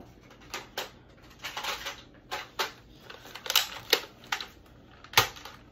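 Sharp plastic clicks and clacks of an old Nerf blaster being handled and loaded with foam darts: about a dozen irregular clicks, the loudest about five seconds in.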